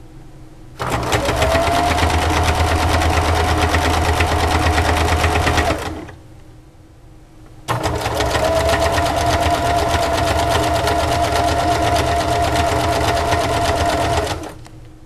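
Janome Jem Gold electric sewing machine running fast in two bursts, about five and six and a half seconds long, with a short pause between: a steady motor whine over rapid, even needle ticking. Each run starts abruptly and winds down at its end.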